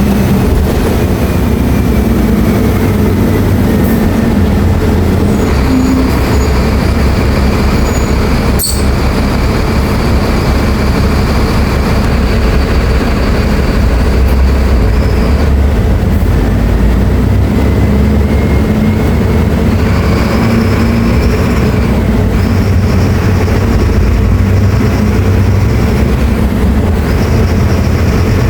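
Mercedes-Benz OF-1724L BT5 bus's diesel engine running under a steady low rumble. A high whine comes in and drops out several times, and there is one sharp click about nine seconds in.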